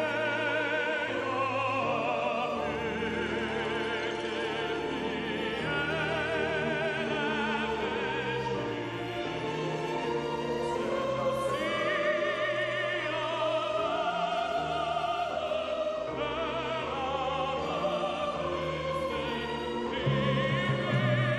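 Operatic-style male solo singing with a wide vibrato over a string orchestra, swelling a little near the end.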